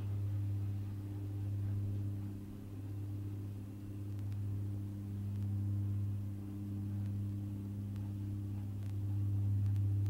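A steady low hum with a few fainter higher tones above it over light hiss, slowly swelling and easing in level.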